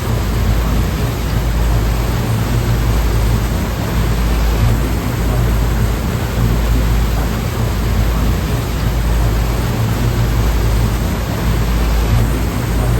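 Sea waves: a steady rushing wash with a heavy low rumble, swelling and easing only slightly.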